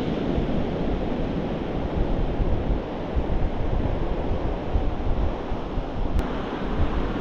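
Wind buffeting the microphone over the steady wash of surf breaking on the shore, the level rising and falling with the gusts.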